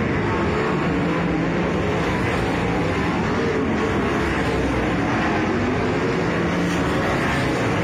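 Several speedway race cars' engines running at speed as they lap a dirt oval together, a steady loud drone with no single car standing out.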